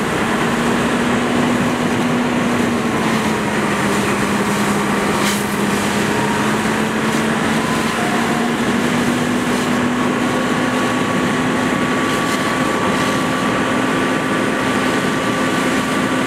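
Fire engine's diesel running steadily to drive its pump for the hose lines, a constant drone whose pitch dips slightly a few seconds in and climbs back, over an even hiss of water spray and fire.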